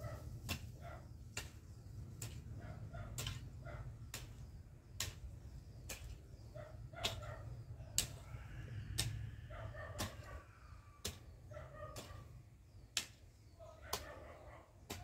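Sharp knocks or clicks repeating roughly once a second, unevenly spaced, over a steady low rumble, with a few faint animal calls in the middle.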